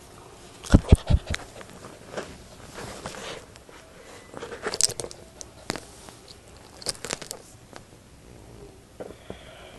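Scattered rustles, crackling clicks and bumps as a puppy is handled and moves about on a blanket, with a cluster of loud thumps about a second in and smaller bursts of clicks later.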